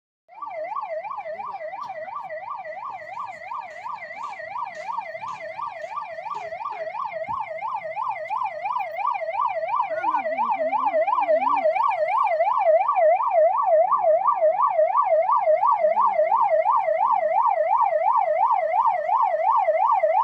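Ambulance siren sounding a fast up-and-down yelp, about two and a half cycles a second, growing louder as the ambulance approaches and then holding steady. It cuts off suddenly at the end.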